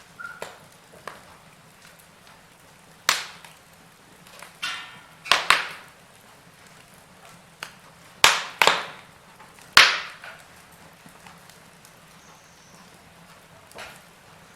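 Wood fire crackling, with a handful of sharp snaps and pops from the burning wood scattered irregularly through it, several of them loud.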